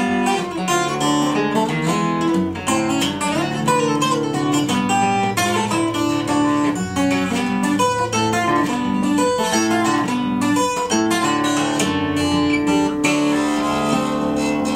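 Solo steel-string acoustic guitar played fingerstyle: a plucked melody over a bass line, settling into longer held notes that ring on near the end.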